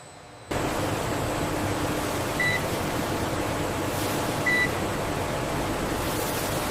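Steady factory machinery noise that starts abruptly about half a second in, with two short high electronic beeps about two seconds apart.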